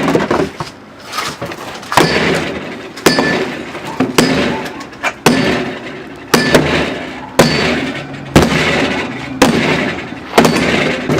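Refrigerator being struck over and over, about one heavy blow a second, each a sharp bang with a short metallic ring.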